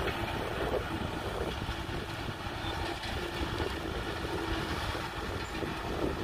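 Kubota M6040 tractor's four-cylinder diesel engine running steadily while the tractor pulls a tillage implement across a field.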